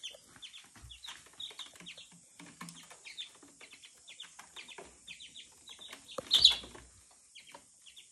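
A small chick peeping: many short, high, falling cheeps, several a second, as the dog noses it. One louder short noise stands out about six seconds in.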